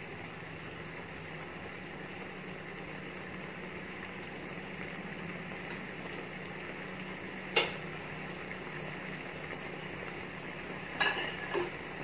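Squid and celery stir fry bubbling and sizzling steadily in its sauce in a pan over a gas flame. One sharp knock sounds about halfway through and two more near the end.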